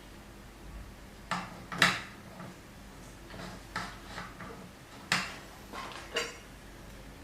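Small metal parts and tools being handled while assembling a microscope: a handful of separate sharp clicks and clinks, the loudest about two seconds and five seconds in.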